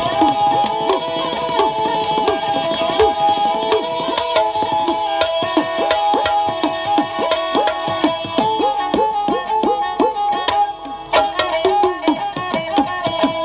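Instrumental dhadi music: a bowed sarangi plays a held melody while two dhadd hourglass drums are struck in quick strokes, their notes bending in pitch. The drumming pauses briefly about eleven seconds in, then picks up again.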